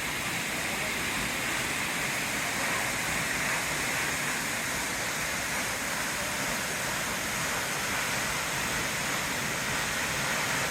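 Steady rushing of Toccoa Falls, a 186-foot free-falling waterfall.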